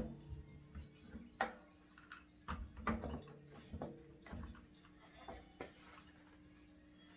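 Parts of a Shop-Vac wet/dry vacuum being handled and pushed together, giving irregular knocks and clicks about half a dozen times as a tight-fitting part is worked onto the back of the unit.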